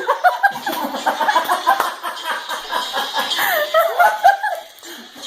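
Rapid, choppy laughter that breaks off near the end.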